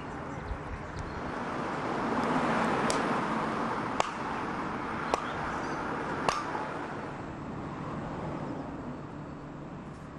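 A hatchet chopping kindling: four sharp strikes about a second apart, over a rushing background noise that swells and then slowly fades.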